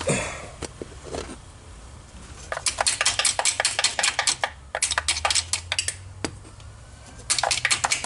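Hand ratchet clicking in three quick runs of rapid ticks, with short pauses between, as a bolt holding an ignition coil is turned.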